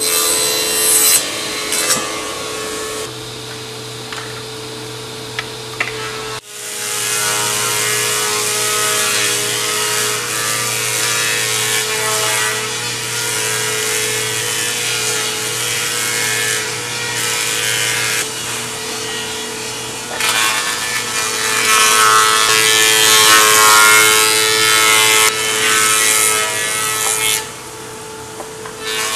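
Woodworking machinery on a wooden cable drum production line running and working timber: a steady machine hum under harsh cutting noise. The sound changes abruptly about six seconds in and is loudest in the last third.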